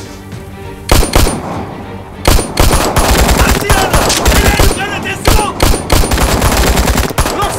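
Rifle gunfire: two sharp shots about a second in, then rapid, dense automatic firing from a little after two seconds until near the end.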